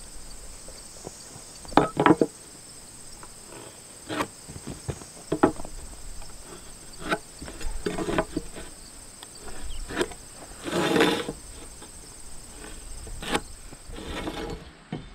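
A steady high-pitched insect chorus, with scattered knocks and taps of hand tools on a wooden sill plate. The loudest knocks come about two seconds in.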